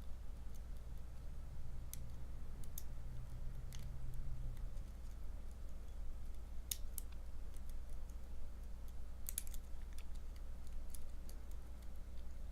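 Lock pick and tension wrench working inside a challenge padlock: a scattering of faint, irregular metallic clicks and ticks as the pins are picked, over a steady low hum.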